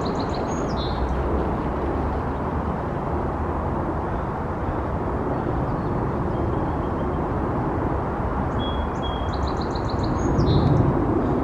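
A songbird sings a short phrase twice, a held whistle followed by a quick run of high notes, once right at the start and again near the end. Behind it is a steady low outdoor rumble that swells briefly near the end.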